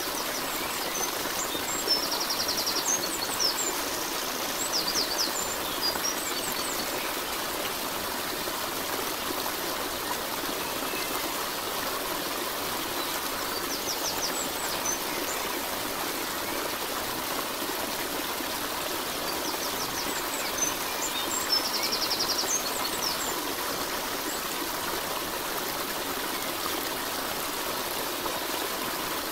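Steady rushing and trickling of a flowing stream, with a few short bursts of high chirping: twice in the first several seconds, once around the middle and once about two-thirds through.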